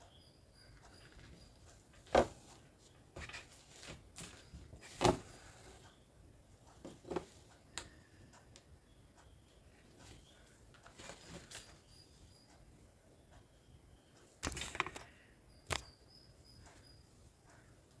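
Sparse handwork noises of hand embroidery: sharp clicks and short scratchy rustles as a needle is pushed through fabric stretched taut in an embroidery hoop and thread is drawn through. The sharpest clicks come about two and five seconds in.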